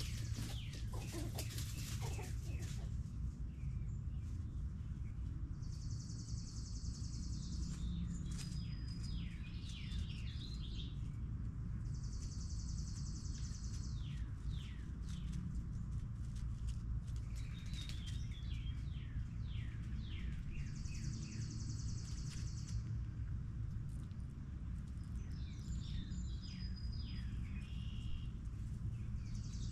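Songbirds chirping, with a high trill of about a second repeated four times, over a steady low rumble.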